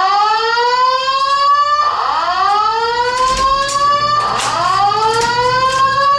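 Fire alarm sounding a loud whoop tone: a rising sweep in pitch, repeated about every two and a half seconds.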